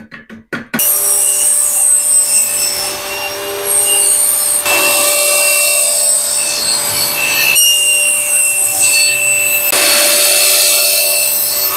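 Table saw running and ripping a wooden board, a steady motor whine over the rasp of the blade cutting through the wood. The sound changes abruptly a few times, as between separate cuts.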